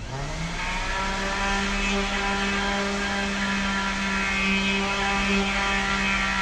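Power sander switched on, its motor spinning up over about half a second and then running at a steady speed, used for sanding the metal body of a refrigerator.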